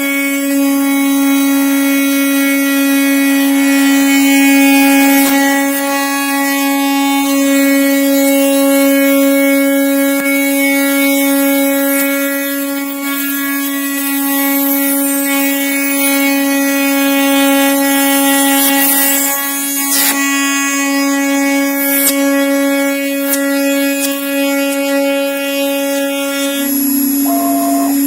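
CNC router spindle running with a steady high whine while its cutter mills wood at a fast feed, with a few sharp cracks about 20 and 22 seconds in. Near the end the upper part of the whine drops away, leaving the plain spindle hum.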